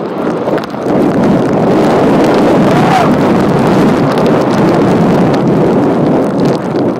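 Loud, steady rush of wind on the microphone of a camera carried down a snowy ski run at speed, mixed with the hiss of sliding over snow; it builds up in the first second, then holds.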